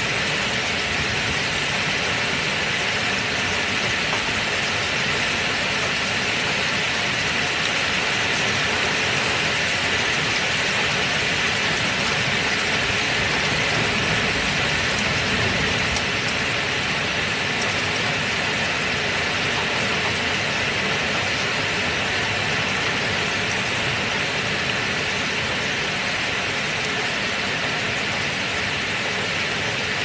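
Heavy rain falling steadily, a dense, even hiss without breaks or thunder.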